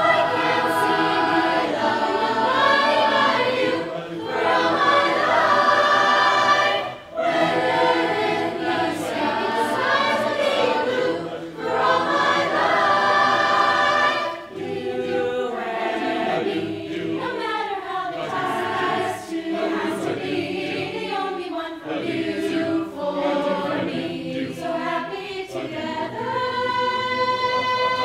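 Mixed high school choir singing, the phrases broken by short breaths, with the lines moving more quickly in the second half.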